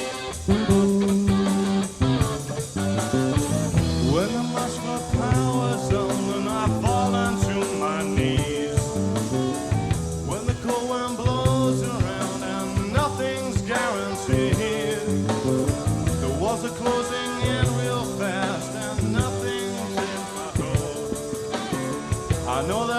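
Live rock band playing a song: electric guitar over a stepping bass line, with steady drum hits.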